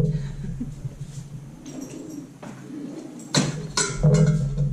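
A dog whining softly, begging for food, with a sharp crisp click or crunch about three and a half seconds in.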